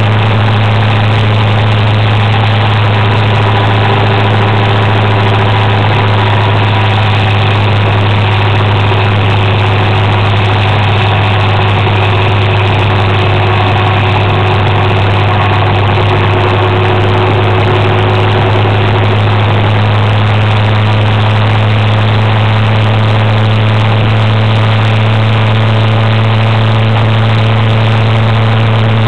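Scooter engine running at a steady cruising speed, heard from on board: a loud, constant low drone that does not change.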